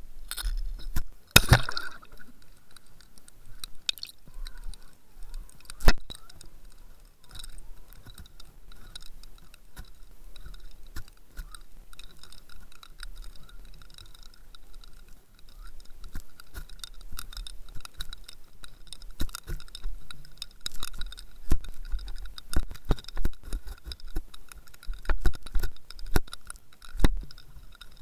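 Irregular clicks, taps and knocks picked up by an action camera sealed in a waterproof housing as it hangs underwater on a fishing line, with a faint steady high whine beneath. The sharpest knock comes about a second and a half in, and the clicking grows busier in the second half.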